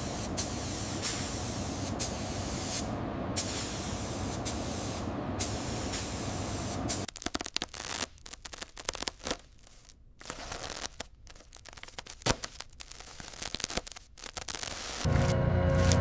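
A steady spraying hiss for about seven seconds that cuts off suddenly, followed by scattered small scrapes and clicks. Music comes in near the end.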